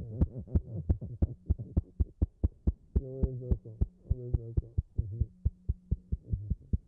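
Hands patting a man's back in a hug, quick even pats at about four to five a second, while a man's voice breaks out a few times in wordless, wavering sounds. A low steady hum runs underneath.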